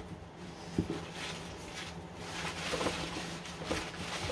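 Faint rustling of newspaper wrapping, with a light tap about a second in, over a low steady hum.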